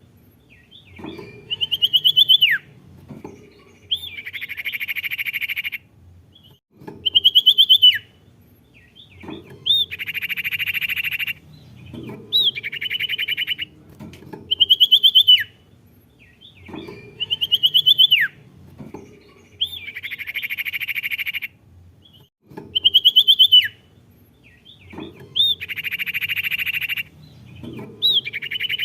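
Recorded song of the songbird Indonesian keepers call sirtu, played to prompt a silent captive bird to sing. The same sequence repeats about every eight seconds: a trilled whistle that drops sharply in pitch, then a couple of seconds of dense buzzy chatter.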